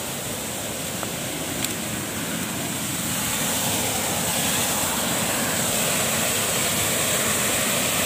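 Rushing water of a small waterfall and river, a steady noise that grows louder about halfway through as it is approached.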